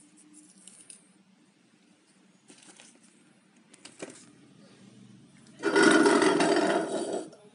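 Packaging being handled during an unboxing: faint clicks and rustles, a sharper click about four seconds in, then a loud rustling, scraping noise for about a second and a half near the end.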